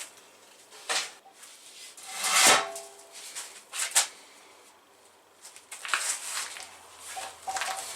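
A cut-open sheet-steel tank being handled: scattered knocks and scrapes of metal, with a louder scrape about two and a half seconds in that leaves a brief metallic ring.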